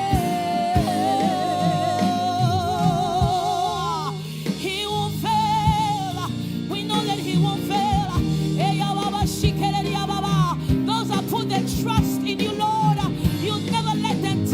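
Gospel worship song with band accompaniment: a lead voice sings with wide vibrato, holding one long note for about the first four seconds, then moves into shorter phrases over steady drum hits.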